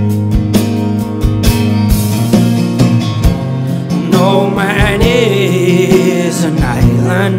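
Live band music: strummed acoustic guitar over electric bass and drums keeping a steady beat. About four seconds in, a wavering wordless vocal line comes in, then fades near the end.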